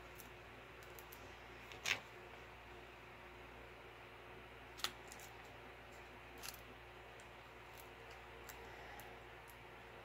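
A few sharp snaps of a Crop-A-Dile hand hole punch biting through a stack of paper tags. The loudest comes about two seconds in and the others near five and six and a half seconds, over a faint room hum.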